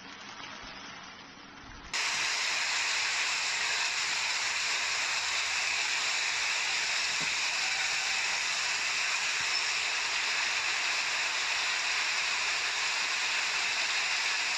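Heavy rain pouring down onto a paved street: a steady, even hiss that starts abruptly and much louder about two seconds in, after quieter rain noise.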